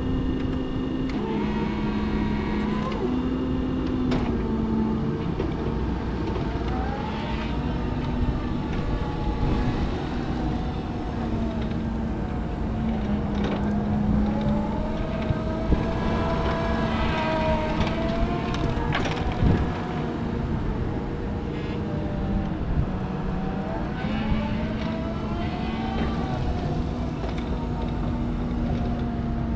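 Raymond 20-R30TT 24-volt electric stand-up reach truck driving about: its electric drive whines up and down in pitch as it speeds up and slows, over a steady low hum that shifts pitch a few times. A couple of sharp knocks about halfway through.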